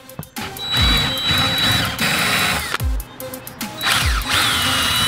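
Power drill running a twist bit through a metal hinge leaf into a wooden block, drilling a bolt hole. There are two runs of about two seconds each, with a high motor whine.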